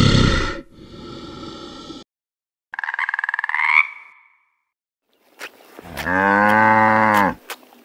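A deep growl at the start, then a tree frog's pulsed croaking trill that rises in pitch, then a cow's single long moo near the end.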